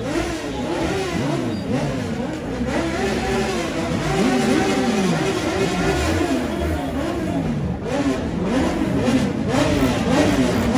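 Motorcycle engine revving hard, its pitch rising and falling again and again, with crowd voices underneath.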